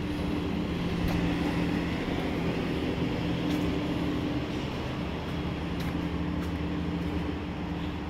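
Steady mechanical drone of a running machine, with a constant low hum.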